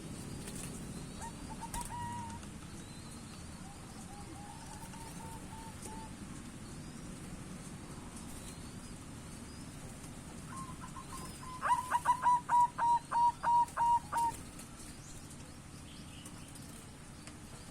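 Zebra dove (perkutut) cooing. A couple of soft, short phrases come first, then about eleven seconds in a loud run of around ten quick staccato coos, about four a second. A steady low background rumble lies under it.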